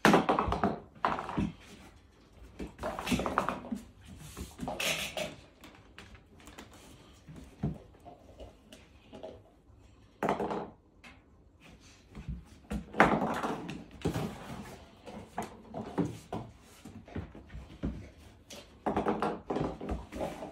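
A Weimaraner playing rough with a bread roll on its cushion: thumps and scuffling as it rolls, pounces and tosses the roll, with short bursts of vocalising now and then.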